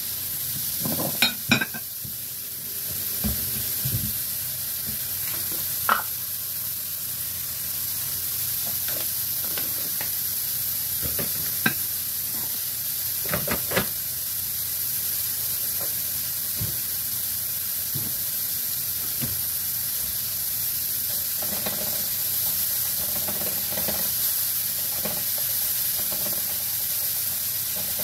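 Shaved beef searing on high heat in a frying pan with mushrooms and vegetables, a steady sizzle, broken by a few sharp knocks, the loudest about a second in.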